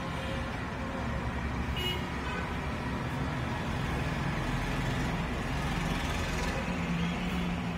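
Steady roadside traffic noise with vehicle engines running; an engine hum grows louder from about five seconds in.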